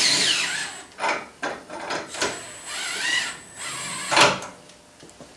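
Cordless drill turning the threaded-rod leveling foot of a machine's mobile base, running in short bursts with a high whine. Clicks come between the runs, and a louder knock about four seconds in.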